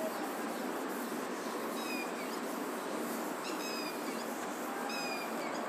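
Steady background hiss with three faint, short high squeaks, about two, three and a half and five seconds in.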